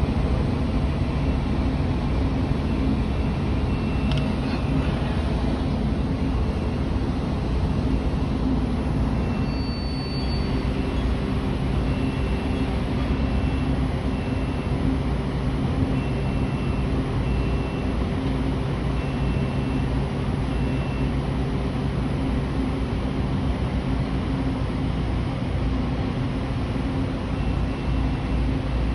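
Heavy diesel construction machinery running steadily at a building site during a crane lift. Through the middle a high electronic beep repeats at an even pace, like a machine's warning beeper.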